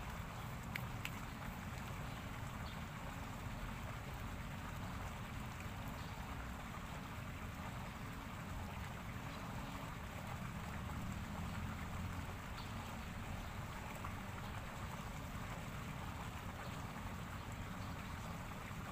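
Steady outdoor ambience: an even hiss with a low rumble underneath, and a few faint clicks about a second in.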